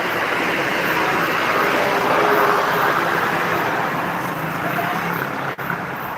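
Road vehicle passing by: a steady engine-and-tyre noise that builds to a peak a couple of seconds in, then slowly fades, with a momentary audio dropout near the end.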